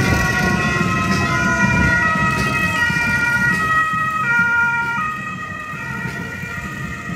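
Several steady siren tones sounding together over a rumbling background, sliding slightly down at first, then shifting pitch in steps a few times before easing off a little.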